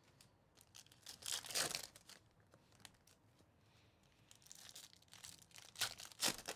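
Foil wrapper of a Panini Donruss baseball card pack being torn open and crinkled by hand, in short faint rustles: one about a second in, more through the second half, loudest near the end.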